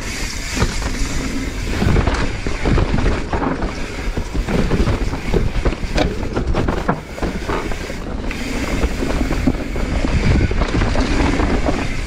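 Mountain bike ridden fast down a dirt trail, with wind buffeting the microphone and frequent knocks and clatters from the bike over bumps.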